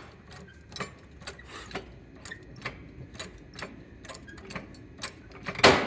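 Irregular sharp clicks and light knocks, roughly two a second, with one much louder knock near the end.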